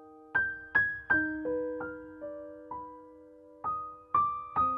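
Background music: a slow, gentle piano melody of single notes, each struck and left to ring and fade, with a short pause a little past the middle.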